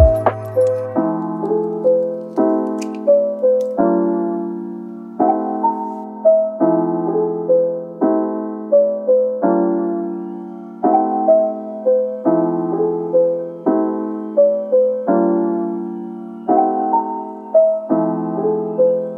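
Background piano music: a gentle, repeating pattern of sustained chords with single melody notes stepping between them.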